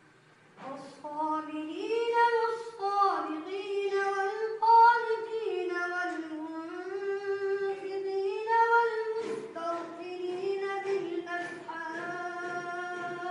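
A boy's voice singing solo and unaccompanied in long, ornamented held notes, starting about half a second in, with a short break for breath about nine seconds in.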